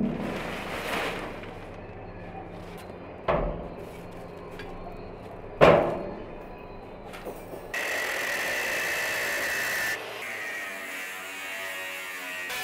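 Two thumps on an empty steel oil drum, each with a short ring. About two-thirds in, an angle grinder starts and runs with a steady high whine.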